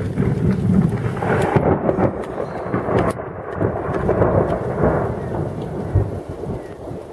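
Loud, long thunder rumbling overhead after a close lightning strike, swelling and easing in waves, with rain falling throughout.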